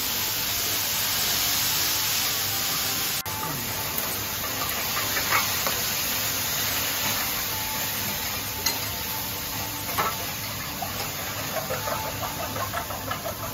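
Yakisoba noodles and cabbage sizzling steadily on a large flat iron griddle, with metal spatulas scraping and clinking on the hot plate now and then.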